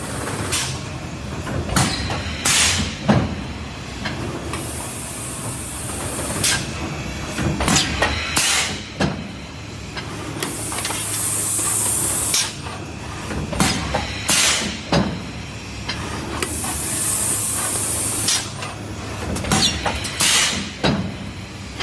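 LX76UN 2-in-1 IM thermoforming machine and its robot stacker running through their forming cycle: a hiss of air about every six seconds, each lasting around two seconds, with sharp mechanical clacks and knocks in between over a steady machine hum.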